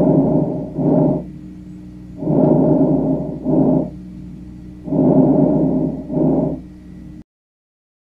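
Normal vesicular breath sounds from an auscultation recording of a healthy lung: three breath cycles, each a longer rustling inhalation followed by a shorter exhalation, over a faint steady hum. The recording stops about seven seconds in.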